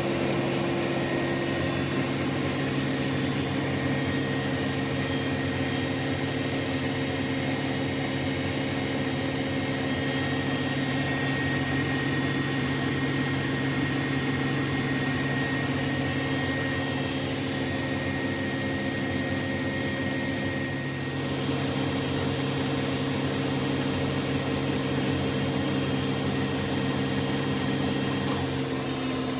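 Bosch Exxcel 1400 front-loading washing machine in a spin, its motor and drum running with a steady whine. The sound dips briefly about two-thirds of the way through, and the pitch shifts near the end.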